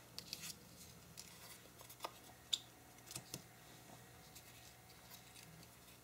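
Faint, scattered light taps and paper rustles of small kraft-paper stickers being set down and picked up by hand on a paper-covered desk.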